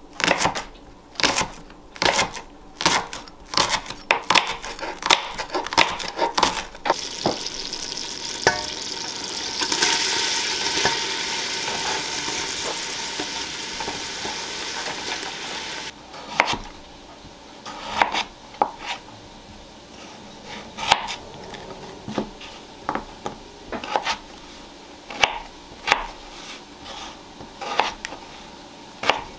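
A chef's knife chops sliced leeks on a cutting board in quick, steady strokes. Then a loud sizzle runs for several seconds as the leeks hit melted butter in a stainless steel pot. After that come slower single knife strokes through raw potatoes on a cutting board, about one a second.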